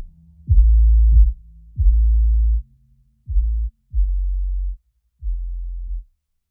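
Background electronic music made of deep bass notes, each starting with a quick falling sweep, about one every second or so. The notes get quieter and stop near the end.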